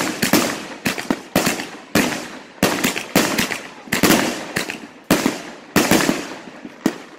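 Consumer fireworks cake firing a rapid series of white star shots, about a dozen sharp reports roughly two a second, each trailing off before the next.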